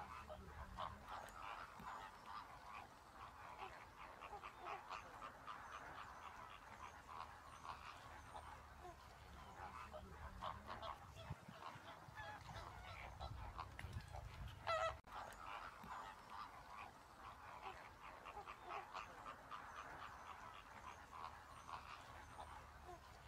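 Faint, continuous chatter of a distant flock of waterbirds: many short calls overlapping without pause, with one louder call just before the halfway point, where the sound cuts off abruptly and starts again.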